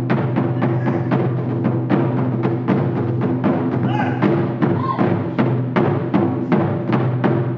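Nagado-daiko (barrel-shaped Japanese taiko) struck with wooden bachi in a fast, even rhythm by two drummers, the strokes ringing on over one another as a steady low drone.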